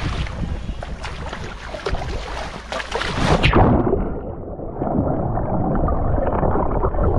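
Wind and splashing water on the microphone at the surface. About halfway through the sound turns abruptly muffled and dull as the microphone goes under water, leaving a low underwater rush.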